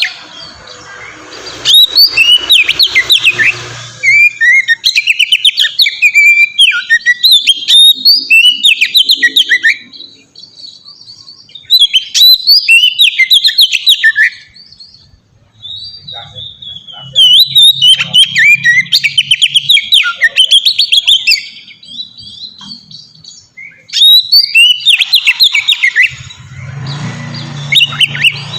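Oriental magpie-robin (kacer) singing its long, full song: bouts of rapid, varied whistled phrases, each a few seconds long, with short pauses between them.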